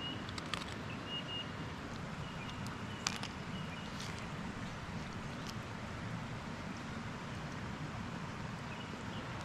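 A mountain stream rushing steadily, broken by a few sharp clicks and some short high whistles.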